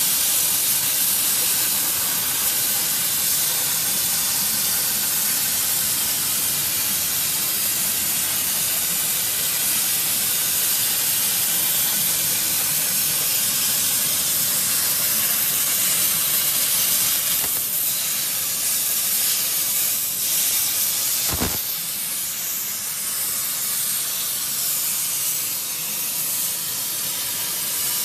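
CNC plasma cutting table's torch cutting steel plate: the plasma arc and its air jet hiss loudly and steadily. A single knock comes about three-quarters of the way through, and after it the hiss is a little quieter.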